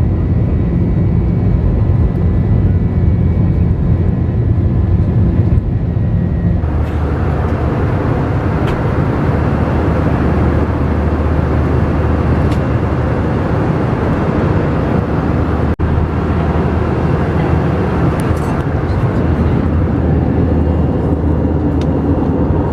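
Airliner cabin noise during takeoff and climb: a steady rumble and rushing air from the jet engines. The rushing grows brighter about seven seconds in.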